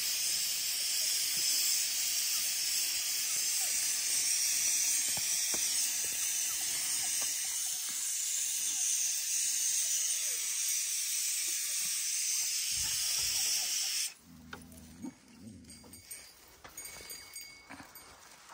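A loud, steady hiss that cuts off suddenly about fourteen seconds in, leaving only faint low sounds.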